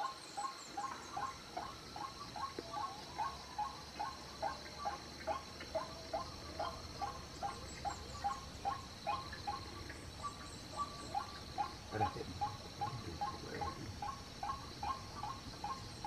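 White-breasted waterhen (ruak-ruak) call, a long series of short notes about twice a second, played back as a hunting lure to draw the birds out. A steady high whine runs underneath.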